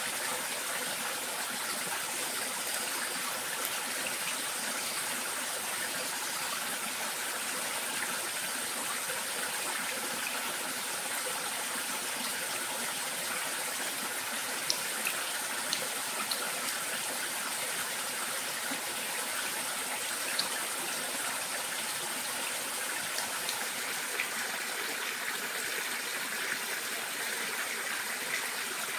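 Steady rushing of flowing water from a forest stream, even and unbroken, with a faint high tone that comes and goes and a few small clicks around the middle.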